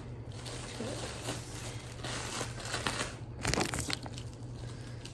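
Plastic candy wrappers and treat bags crinkling and rustling as they are handled, with a burst of sharper crackles a little past halfway, over a faint steady low hum.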